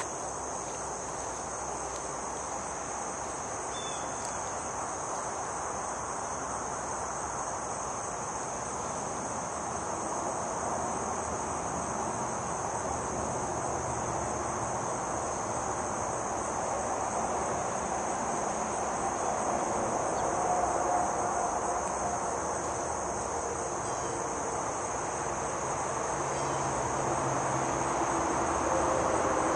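Steady, high-pitched insect chorus over the constant noise of distant interstate traffic, which grows a little louder near the end.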